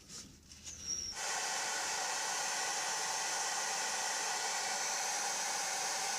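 A steady hiss of gas or air under pressure starts suddenly about a second in and holds at an even level without a break.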